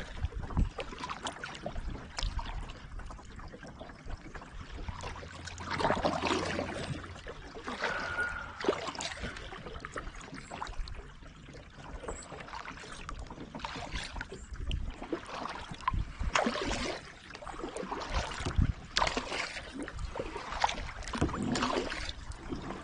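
Kayak paddling: the paddle blade dipping and pulling through the water in irregular splashing strokes.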